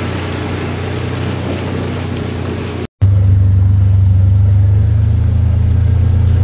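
A vehicle engine running steadily while driving, with rough road and rattle noise over its low hum. About three seconds in the sound drops out for an instant, and then the engine hum is louder and smoother, with less of the rough noise.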